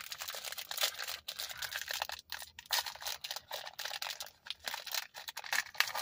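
Crinkly plastic wrapper of a snack bar being handled and opened: a dense, irregular run of crackles and clicks.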